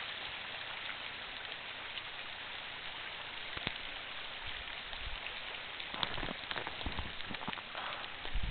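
Steady outdoor hiss with no distinct source. From about six seconds in, scattered low thumps and crackles from handling of a handheld camera join it.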